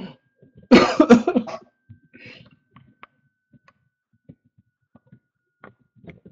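A person coughing: a quick run of several coughs about a second in, then one softer cough or throat-clear.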